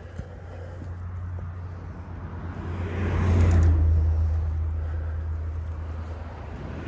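A car driving past, its engine and tyre noise swelling to its loudest about three and a half seconds in, then fading away.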